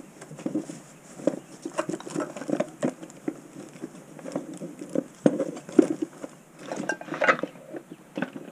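Hands rummaging through a wooden shop drawer: small scrap-wood offcuts clattering and knocking against each other and the drawer, with rags rustling, as irregular clicks and knocks.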